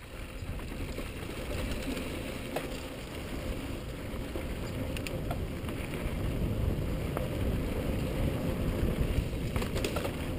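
Cannondale Jekyll full-suspension mountain bike riding down dry, dusty dirt singletrack: a low rumble of tyres on loose dirt and air rushing past, building steadily as speed rises, with a few sharp clicks and rattles from the bike.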